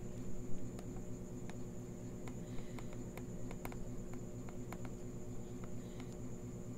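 Plastic stylus tip tapping and ticking on a tablet's glass screen while writing, about a dozen sharp, irregular ticks, over a steady electrical hum and a faint high whine.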